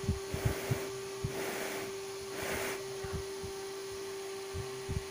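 Short puffs of breath blown onto a freshly glued headphone-cable joint to dry it, a few soft swells about a second apart in the first three seconds. A steady electrical hum runs underneath, with light handling knocks from the fingers on the cable.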